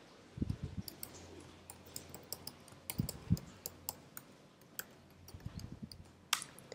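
Irregular keystrokes on a computer keyboard as a password is typed, with one louder keystroke near the end.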